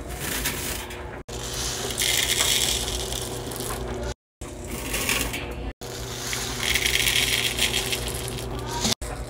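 Small scent booster beads pouring from a bottle into a plastic cup and sprinkling into a washer drum, a dry rattling patter in two longer pours, cut off abruptly between short clips.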